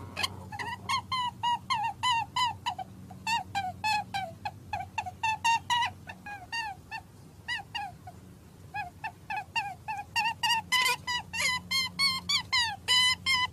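Chicken clucking in a fast, even run of short calls, about three or four a second. The calls thin out in the middle and come louder near the end.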